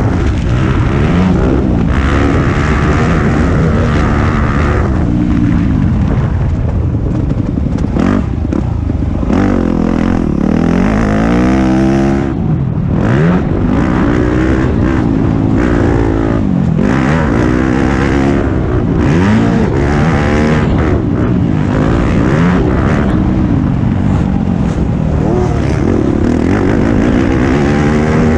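Yamaha YZ250F's 250 cc four-stroke single-cylinder engine heard on board while being ridden hard around a motocross track, the pitch climbing and dropping again and again as the throttle is opened and closed and the gears change.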